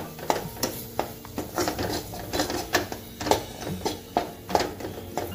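A perforated metal spatula scraping and knocking against a steel kadai as a thick besan-and-ghee mixture is stirred and pressed, a quick, even run of strokes at about three a second.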